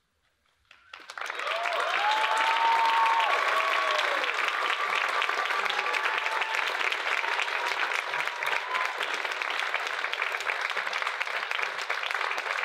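Theatre audience applauding after about a second of silence, the clapping swelling quickly and then holding steady. A few voices cheer and whoop in the first couple of seconds of the applause.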